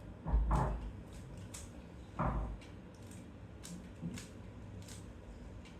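Plastic 3x3 Rubik's cube being turned by hand, its layers clicking as they rotate, with two louder thumps from handling about half a second in and about two seconds in.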